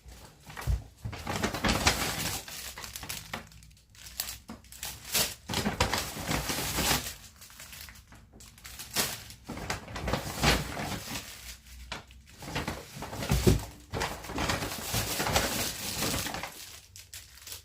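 Packaging being handled and pulled open: irregular crinkling and crackling with short tearing rustles, louder and softer by turns.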